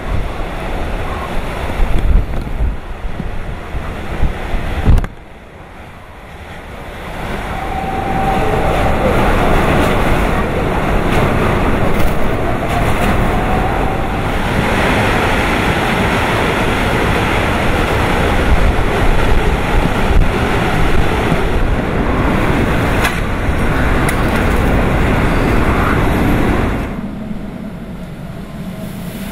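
Typhoon wind buffeting the microphone over heavy surf. It drops sharply about five seconds in, builds back up, and drops again near the end.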